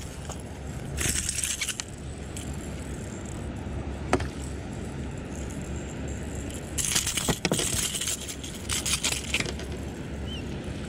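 Fishing tackle being handled: small clicks and clinks of the reel and lure, with a few short bursts of rustling, over a steady low rumble.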